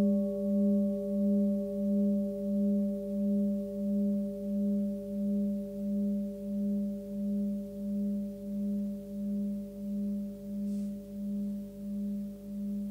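A 20 cm Tibetan singing bowl tuned to about 202 Hz, between G and G sharp, ringing out and slowly fading. Its deep hum pulses in a slow wah-wah about one and a half times a second, and its higher overtones die away about five seconds in.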